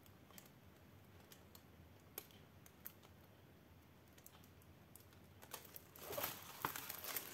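A few faint scattered clicks, then from about six seconds in the crinkling of the clear plastic film on a diamond painting canvas as it is handled.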